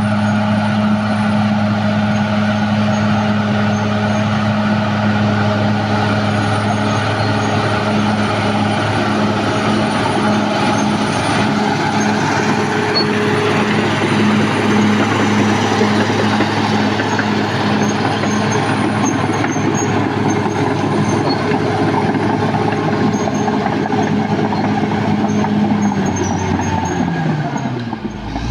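Caterpillar D6R XL bulldozer's diesel engine running steadily under load. Near the end the engine note falls away as it throttles down.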